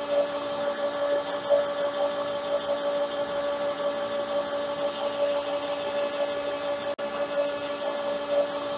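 Metal lathe running steadily with a constant whine, while a homemade threading die cuts a thread on the turning workpiece.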